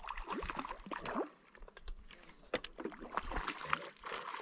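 Hooked rainbow trout splashing and thrashing at the water's surface as it is reeled in, in irregular splashes.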